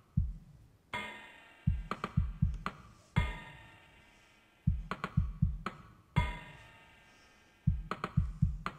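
Synthstrom Deluge drum kit playing a looping beat. Clusters of four quick, deep kick-drum thumps alternate with single kicks and ringing metallic pitched hits, the pattern repeating about every three seconds.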